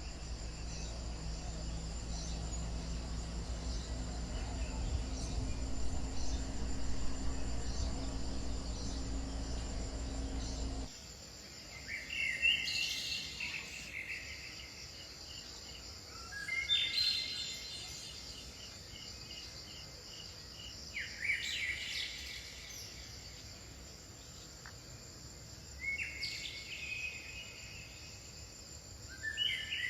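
Crickets or other insects chirring steadily and high throughout. A low rumble underneath cuts off suddenly about a third of the way in. After that a songbird sings a short phrase about every four to five seconds.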